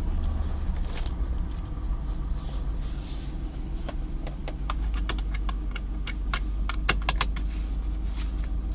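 Vehicle engine idling with a steady low rumble, an idle the uploader calls rough. A quick run of sharp clicks and ticks comes over it about halfway through.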